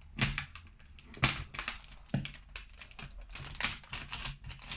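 Irregular clicks, taps and crinkles of cardboard and plastic packaging being handled as a toy box is opened, the loudest about a second in.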